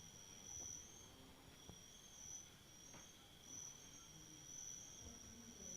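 Near silence with faint insects chirring: a high, thin trill that swells and fades every second or so, and a few faint clicks.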